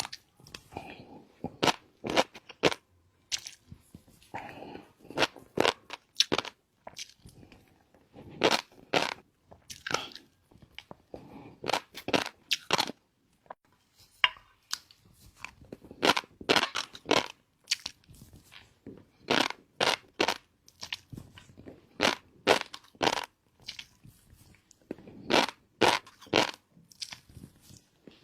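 Close-miked chewing of shrimp topped with fish roe: repeated clusters of sharp, crunchy clicks at an irregular pace.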